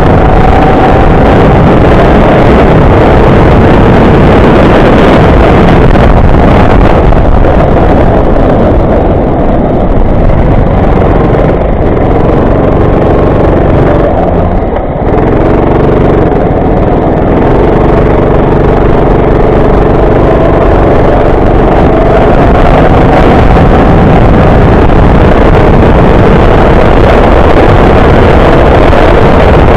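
Go-kart engine running hard under load, loud with wind noise on the microphone. About halfway through its pitch and loudness drop briefly, then the engine climbs back up.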